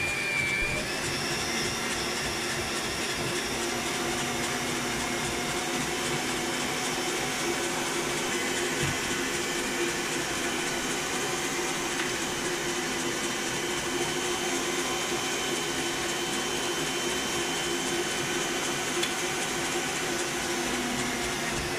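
Kenwood Chef stand mixer running its mincer attachment with a steady motor whine while beef strips are pushed through the mincer and ground.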